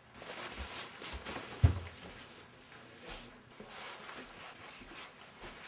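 Rustling and scuffling movement with a few dull thumps, the loudest about one and a half seconds in.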